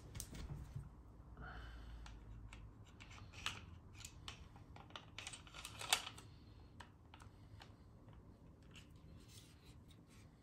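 Scattered light metal clicks and clacks of a Glock 19-pattern pistol being handled, its slide worked by hand on freshly greased rails to test for smoother travel. The sharpest click comes about six seconds in.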